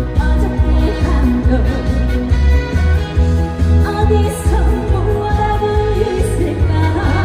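Korean trot song performed live: a woman singing over a backing track with a steady bass beat.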